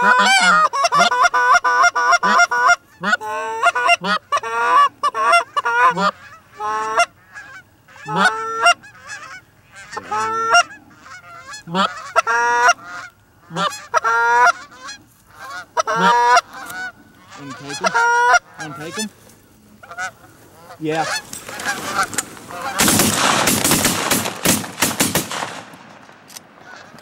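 Canada geese honking, one call after another in quick succession. About 21 seconds in, the calls give way to a few seconds of loud rough rustling noise.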